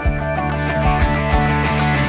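Background music: sustained notes over a steady beat.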